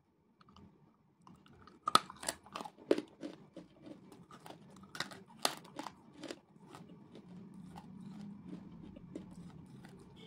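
Slate pencil being bitten and chewed close to the microphone: a run of sharp, brittle crunches starting about two seconds in, easing into softer, steadier chewing in the second half.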